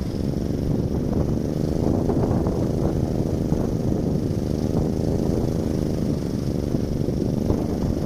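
Small 3D-printed wind turbine spinning in strong storm wind: a hum from the rotor and generator whose pitch wavers slightly with the gusts, over heavy wind rumble on the microphone.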